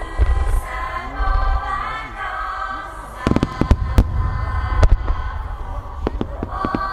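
Fireworks going off: low booms at first, then a quick run of sharp bangs and cracks about three seconds in, with more bangs spread out after. Music plays underneath and comes back up near the end.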